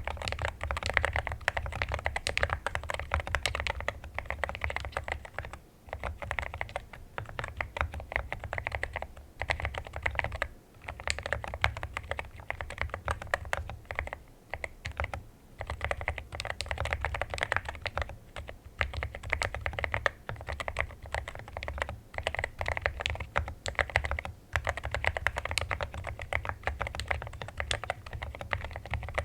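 Continuous fast typing on a mechanical keyboard fitted with Akko Rosewood switches, keystrokes coming in rapid runs broken by a few short pauses.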